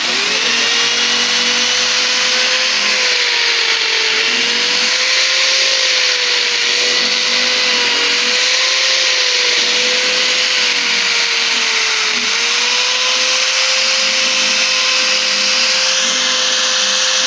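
Electric drill boring into beech wood: the motor starts suddenly and then runs at a steady high speed, its pitch dipping briefly about four seconds in and again about twelve seconds in.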